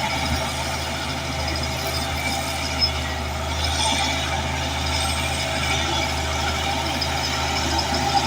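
Bulldozer's diesel engine running steadily at a constant pitch, with one short knock about a third of the way in.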